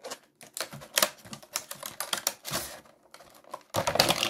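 Clear plastic blister packaging being handled and pulled about: a quick, irregular run of crackles and clicks, densest about a second in and again near the end.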